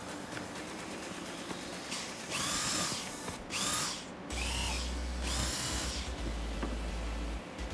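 Corded electric drill boring into pine seat slats in three short runs, each spinning up to a high whine and winding down again.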